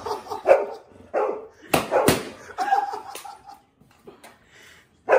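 Small dog barking several short, sharp barks while playing, most of them in the first three seconds.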